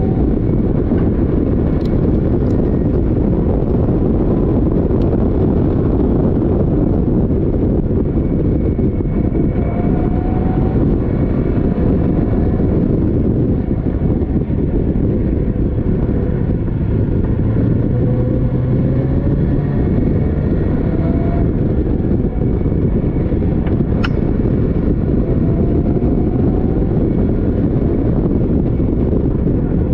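Caterham Seven race car at full racing speed, heard from the open cockpit: the engine runs hard under dense wind and road rumble, its note rising again and again as it pulls through the gears. A single sharp click comes late on.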